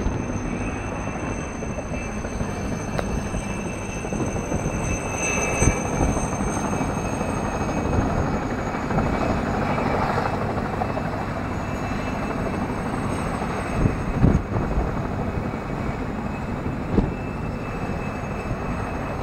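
Steady engine drone with a constant high-pitched whine over a deep rumble, and a couple of short knocks about fourteen seconds in.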